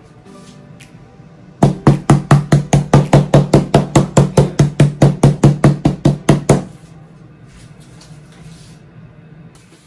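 Meat mallet with a spiked metal head pounding a boneless chicken breast through plastic wrap on a plastic cutting board to flatten it: a fast, even run of about five blows a second, starting about one and a half seconds in and stopping about five seconds later.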